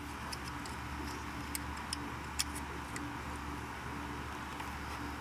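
A few light, scattered clicks of small metal parts being handled by hand at the back of an alternator while cables and a terminal nut are fitted, over a steady low hum.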